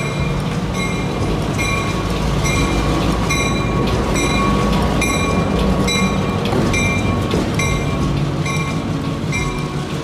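EMD MP15AC diesel switcher locomotive running past at low speed, its 12-cylinder diesel engine growing louder toward the middle as it passes close by, then easing. A regular ringing pulse sounds about every two-thirds of a second.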